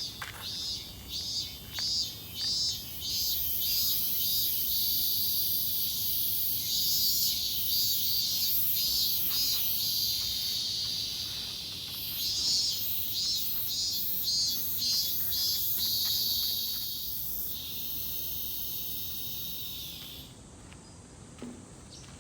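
Cicadas singing loudly: at first in pulses about twice a second, then a steady high buzz that stops suddenly about twenty seconds in.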